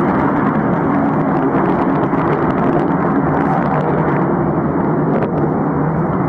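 Rockwell B-1B Lancer's four turbofan engines at high power as the bomber climbs away, a loud, steady, deep jet noise.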